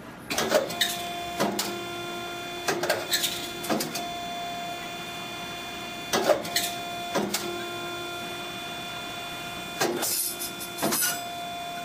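Gerber MultiBender straight rule processor running a piece of steel die rule: a steady whine of the feed motors, broken by repeated sharp clacks from its cutting and bridging tools as the rule is fed and cut.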